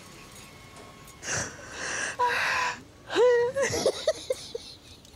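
Women laughing helplessly: wheezing, gasping breaths, then a high-pitched squeal of laughter that breaks into a few short 'ha's and trails off near the end.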